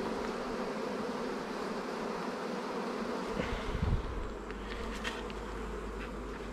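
Honeybees buzzing steadily in a dense swarm over an open hive, with a few light knocks about three and a half to five seconds in as wooden frames are handled.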